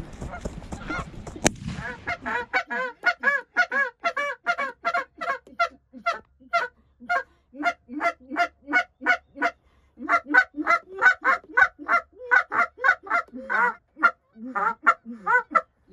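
A flock of Canada geese honking rapidly and continuously, several calls a second with short breaks. A single gunshot cracks about a second and a half in, just before the honking starts.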